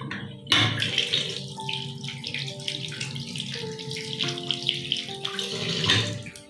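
Bathroom sink faucet running, the water splashing into the basin and over a hand, starting suddenly about half a second in. Soft background music with held notes plays underneath.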